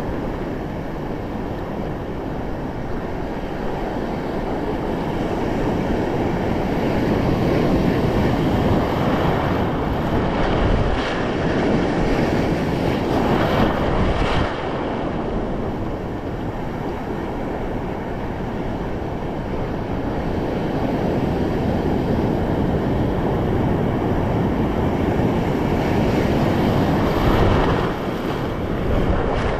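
Ocean surf churning and splashing around a wading angler, with wind buffeting the microphone: a steady rushing noise that never lets up.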